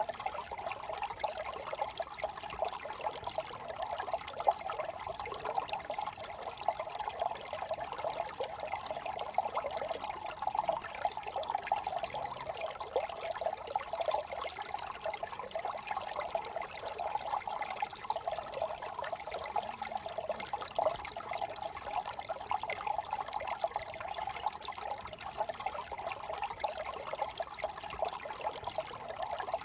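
Brook water trickling steadily, a continuous rippling of running water.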